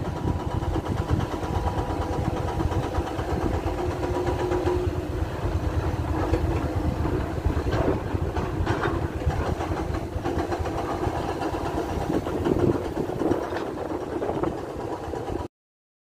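Excavator diesel engine running steadily, with a couple of sharp knocks about halfway through.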